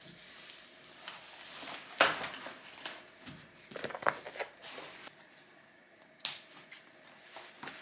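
Scattered clicks and knocks of small objects being handled, with the loudest knock about two seconds in.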